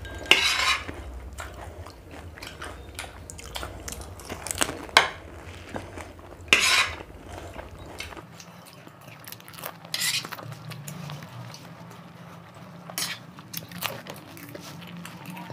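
Eating at a table: spoons clinking and scraping on plates of macaroni, chewing, and several short, sharp crunches as crisp pani puri shells are bitten. A low steady hum runs underneath and changes pitch about eight seconds in.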